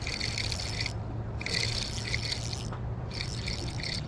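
Fishing reel being cranked in three short bursts of about a second each while a hooked fish is fought on light line, over a steady low rush of river water.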